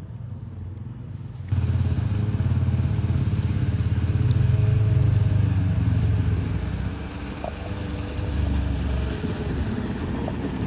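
Yamaha stand-up jet ski's engine running under way with water rushing off the hull. It is fainter at first, then much louder from about a second and a half in as the craft is close by.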